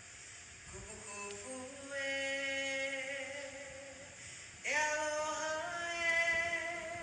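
Unaccompanied singing voice holding long notes: a lower note held for a couple of seconds, then a higher note that slides up into place about two-thirds of the way in and is held.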